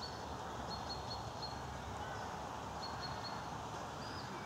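Steady outdoor background rush with a small bird calling in short runs of high, even-pitched chirps, a few times over.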